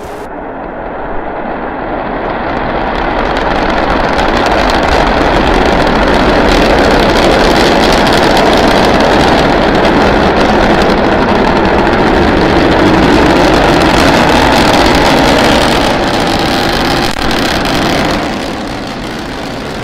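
Starship SN9's three Raptor rocket engines firing during liftoff and climb: a loud, steady rushing noise that builds over the first few seconds and drops off somewhat near the end.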